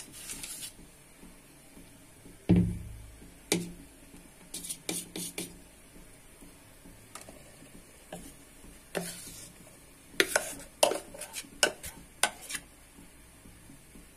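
Steel kitchenware clinking and knocking as batter is poured into a steel tin: a heavy dull knock about two and a half seconds in, then scattered taps, and a quick run of sharp clinks later on as a spoon scrapes the bowl.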